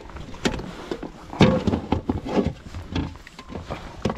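Handling noises on a plastic kayak deck: irregular knocks and clatters with rustling, a few strokes a second apart.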